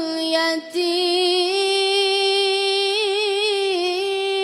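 A high voice chanting Qur'an recitation in a melodic style. After a quick breath it holds one long drawn-out note, with a slight wavering ornament partway through.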